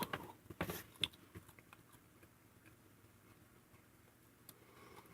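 Biting into and chewing a piece of roasted eel: a few sharp, wet mouth clicks in the first second and a half, then faint chewing.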